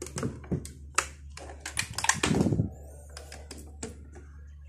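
A portable Singer sewing machine's plastic body knocking and clunking against a tabletop as it is handled and tipped over onto its back: a string of sharp knocks, with a louder, longer clatter about two seconds in.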